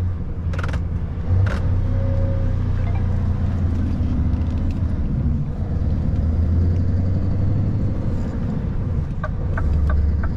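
Scania S770's 16.4-litre V8 diesel engine running under way, heard inside the truck cab as a steady low drone. Near the end a regular ticking comes in, about three ticks a second.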